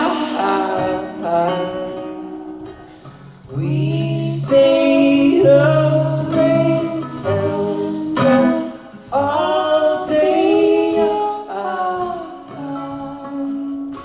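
Acoustic guitar strummed in slow chords, with a voice singing a melody of long held notes over it.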